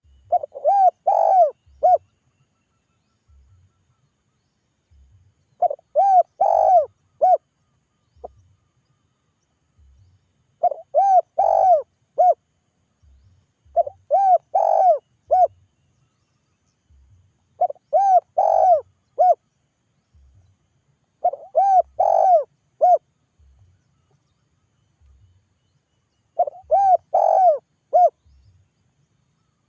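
Spotted dove cooing its calling song: a phrase of four or five coos, repeated seven times at intervals of about four seconds. This is the call used to lure other doves.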